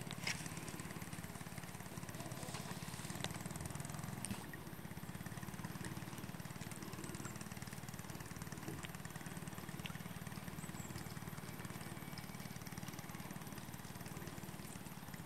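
Small boat motor running steadily at low speed, a constant low hum, with a couple of short sharp clicks near the start.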